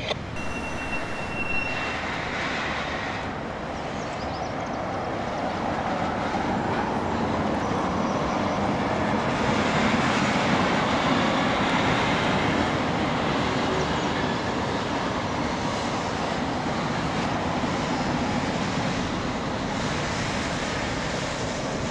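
Freight train of heavy-duty flatcars carrying oversized loads rolling slowly across a steel bridge: a steady rumble of railcars on the rails, slightly louder towards the middle.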